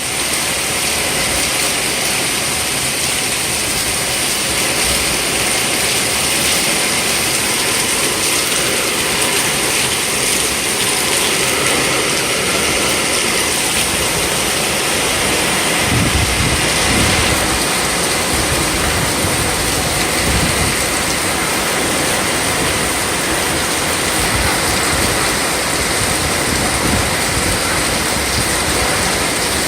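Heavy wind-driven rain pouring steadily in a hurricane's outer rain band. Wind gusts buffet the microphone with low rumbles about halfway through.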